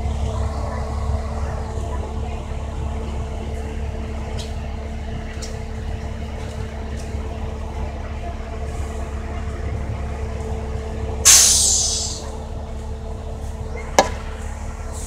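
Inside a moving bus: a steady low drone of engine and road noise, with a loud hiss of air brakes about eleven seconds in that fades over a second. A single sharp click follows near the end.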